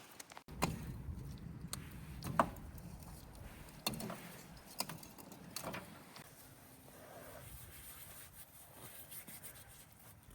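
A few light, separate knocks and clicks at irregular intervals, the clearest about two and a half and four seconds in, over a low, steady background.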